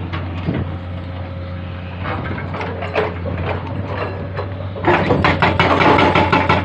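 Komatsu 220 excavator's diesel engine running steadily, with a few scattered knocks. About five seconds in, its hydraulic breaker starts hammering rock in rapid, evenly spaced blows, about eight to ten a second, and becomes the loudest sound.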